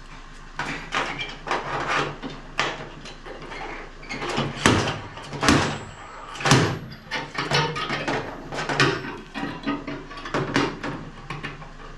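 Slide hammer knocking repeatedly against its stop as it yanks on a stud spot-welded to the steel wheel arch, pulling out a dent. A series of sharp knocks at irregular spacing, the loudest three in the middle.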